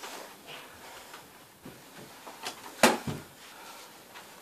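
Boxing gloves landing during sparring: a few sharp thuds. The loudest comes just before three seconds in, with a softer one right after it.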